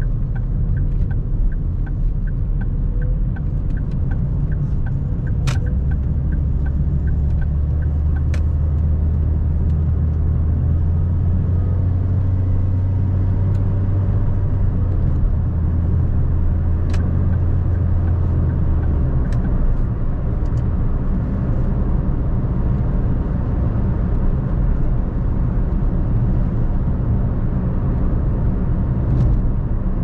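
A car driving: steady tyre and engine rumble, with the turn-signal indicator ticking about twice a second for the first eight seconds. A deeper drone swells about six seconds in and eases off around nineteen seconds.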